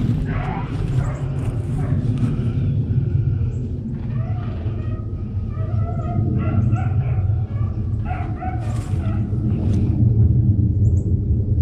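Beagles baying and yelping in the brush, a pack of rabbit hounds giving voice while running a cottontail's trail. The calls come short and scattered, thickest in the middle of the stretch, over a steady low rumble.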